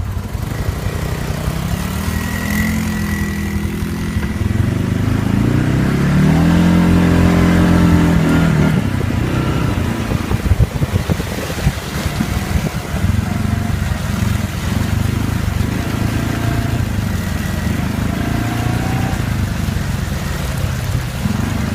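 ATV engine running through mud, revving up about five seconds in, holding high revs for a few seconds, then dropping back to lower, uneven throttle for the rest.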